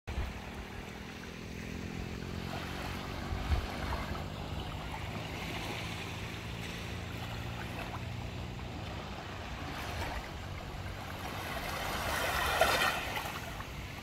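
Calm sea washing against the shore, with a low steady engine hum that fades out about two-thirds of the way through. Near the end a wave swells up, peaks and falls away.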